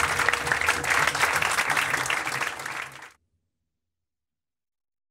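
Audience applauding, with music underneath. It fades out about three seconds in.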